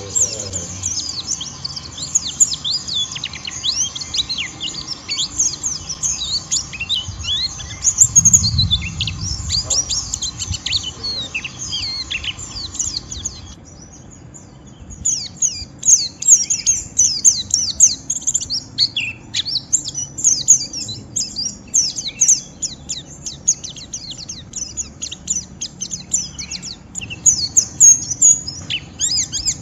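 White-eye (pleci) singing its rough, rapid 'ngeriwik' chatter: dense, high-pitched chirps run together, breaking off sharply about halfway and resuming a second and a half later. A low thump comes about eight seconds in.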